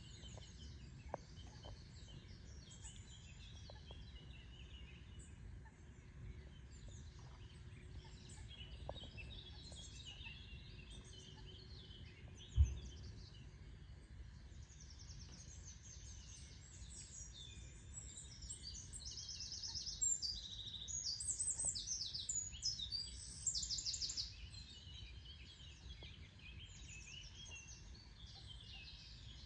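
Several wild birds singing and calling, with one bird's rapid, repeated trills loudest for a few seconds past the middle, over a steady low rumble. A single sharp knock about halfway through.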